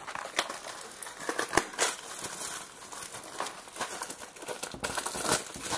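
Wrapper of a 2011 Topps Update Series trading card pack crinkling as it is handled and opened, a quick run of irregular sharp crackles.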